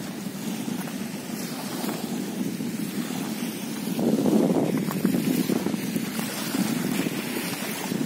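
Small sea waves washing onto a shell-and-sand beach, with wind on the microphone; the wash grows louder about halfway through.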